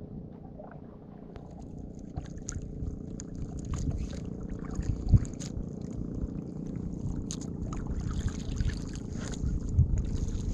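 Water sloshing and lapping against a small wooden outrigger canoe on choppy sea, with wind rumbling on the microphone. There are faint ticks throughout and a couple of brief low thumps, one about halfway through and one near the end.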